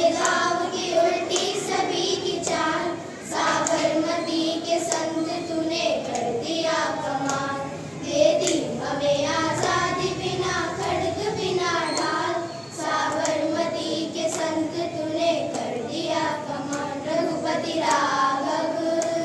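A group of children singing a song together into a microphone, clapping along in time.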